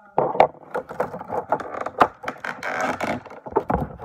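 Plastic toy packaging and minifigures being handled close to the microphone: an irregular run of sharp clicks, knocks and crinkling that starts just after the beginning.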